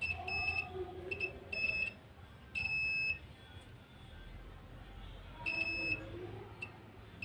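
Continuity buzzer of a Brother HD-390C analog multitester giving a string of short, high beeps at uneven intervals as the probes touch a component's leads. The beeping signals continuity across the leads: the component is shorted.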